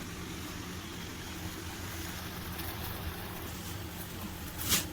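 A steady low hum with an even hiss over it, with a brief sharp clatter near the end.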